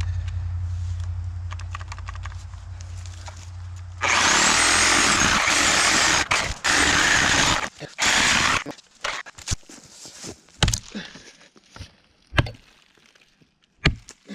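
A low steady motor hum, then a power saw cutting into wood in several loud spells lasting about four and a half seconds. After it come scattered sharp knocks and cracks of wood.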